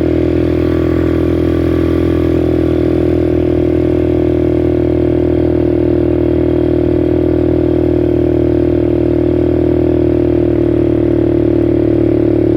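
ATV engine running close by at a steady speed, its pitch holding even with no revving.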